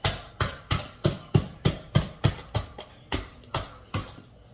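A steady run of sharp taps on a hard plastic object, about three a second, each with a dull thud, stopping shortly before the end.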